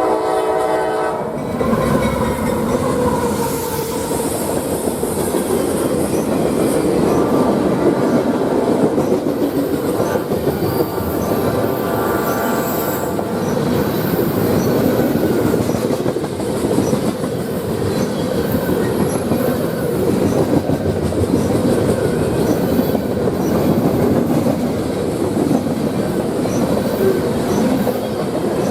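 Freight train passing close by: the locomotive's air horn chord cuts off about a second and a half in, then the long rumble of the cars with wheels clicking over the rail joints.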